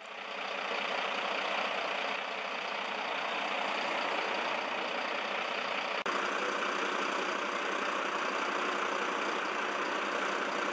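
Steady engine noise of parked emergency vehicles idling in the street. It fades in at the start and breaks briefly about six seconds in.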